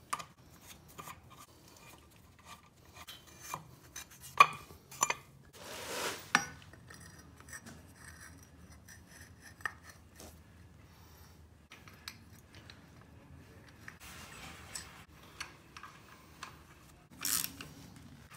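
Metal clinks and clanks of a wrench, bolts and an engine-mount bracket being fitted to the side of a 5.3 Vortec V8 engine block: scattered sharp clicks with quiet gaps, the loudest about four and a half seconds in, and another cluster near the end.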